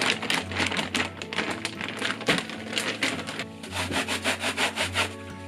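Zip-top plastic bag crinkling in quick rough strokes as pork is kneaded in its marinade through the bag. About three and a half seconds in, this gives way to brisk scrubbing of a metal grater in a sink. Soft background music runs underneath.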